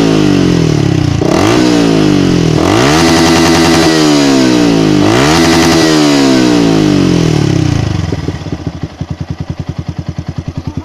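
Yamaha R15's single-cylinder engine through a loud aftermarket exhaust, revved hard several times, the pitch sliding down after each rev. It falls back to a pulsing, lumpy idle about eight seconds in.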